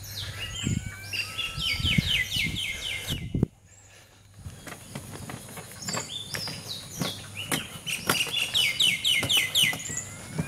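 A songbird singing fast runs of short, falling whistled notes, in two bouts with a brief gap between. Under the song are scattered knocks and thumps from people carrying a canoe over dry ground.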